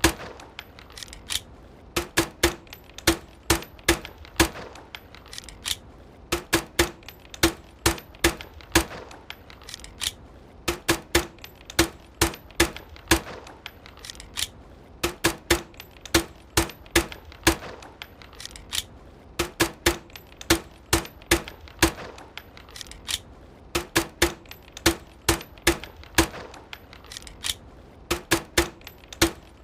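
Suppressed pistol shots through a homemade silencer: sharp cracks fired in quick strings of three to five, with short pauses between the strings.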